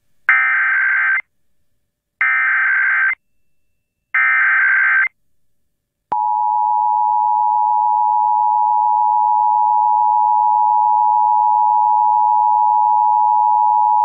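Emergency Alert System test: three one-second bursts of the SAME digital header, a harsh data screech, each about a second apart, then about six seconds in the steady two-tone EAS attention signal starts and holds.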